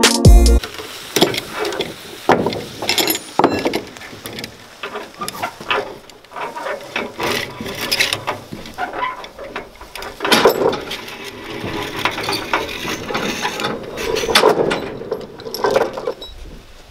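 Hand come-along winch being ratcheted to pull a pickup onto a trailer: irregular runs of sharp pawl clicks and metal clinks, mixed with knocks on the trailer's wooden deck.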